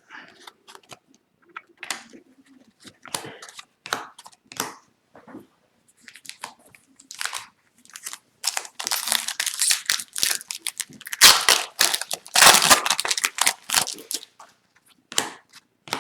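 Foil trading-card pack wrapper crinkling and being torn open, with cards rustling as they are handled; the crinkling is loudest and most continuous in the second half.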